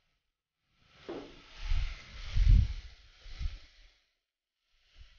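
Uncooked rice sizzling as it fries in hot oil in a cooking pot, stirred with a spatula, with a few dull knocks against the pot. The sizzling starts about a second in and dies away near four seconds.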